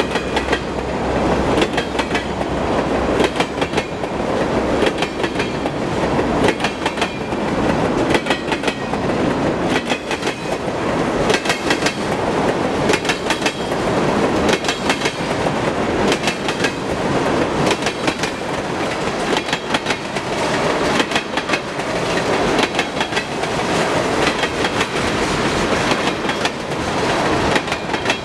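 Freight train of empty ethanol tank cars rolling past, its steel wheels clacking over rail joints in repeated clusters of clicks over a steady rumble.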